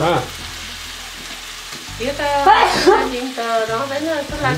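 Pork-leg pickle mixture sizzling as it fries in a wok, stirred with a spoon. A person's voice comes in about two seconds in and is louder than the sizzle.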